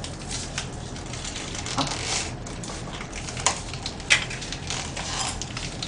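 Paper wrapper of disposable chopsticks rustling and tearing as they are unwrapped, with scattered sharp clicks and taps. The loudest click comes a little after four seconds in.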